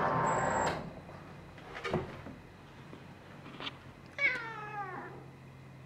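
A tortoiseshell domestic cat gives one meow, slightly falling in pitch and under a second long, a little past the middle. Before that, a loud steady whirring noise cuts off under a second in, and there are two faint knocks.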